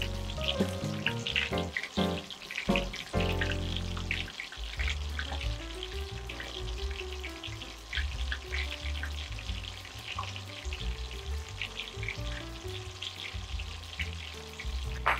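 Shrimp coated in precooked corn flour deep-frying in plenty of hot oil: a steady sizzle with many small crackling pops.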